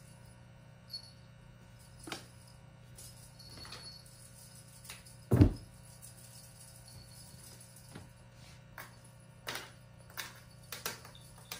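Light scattered taps and knocks of cats pouncing after a feather teaser toy on a hard tiled floor, with one heavy thud about five seconds in as a cat lands from a jump. A faint steady hum runs underneath.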